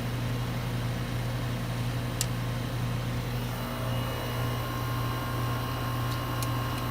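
Old Goodman air-conditioner condensing unit running steadily on a freshly topped-up R22 charge, its compressor humming and condenser fan turning. Two faint light clicks, about two seconds in and near the end.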